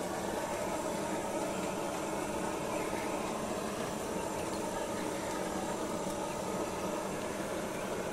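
A steady hiss and hum with no distinct events.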